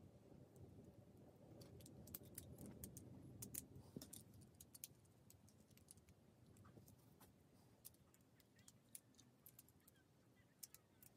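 Faint, scattered clicks and light plastic rattles, thickest in the first half: Lego Technic pieces being handled and pressed together.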